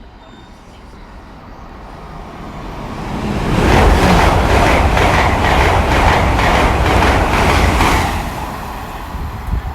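A Great Western Railway Intercity Express Train passing at high speed. A rush of wheels and air builds up, stays loud for about four seconds with a quick, regular clatter as the bogies go by, then fades away.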